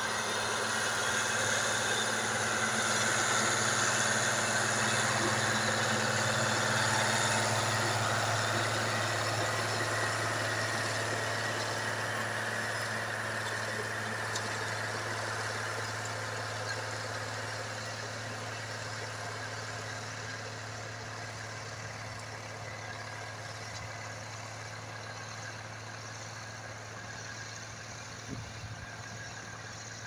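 Ursus C-385 tractor's six-cylinder Perkins diesel engine running steadily under load while pulling a plough. It is loudest about four seconds in, as the tractor passes close, then fades gradually as it draws away.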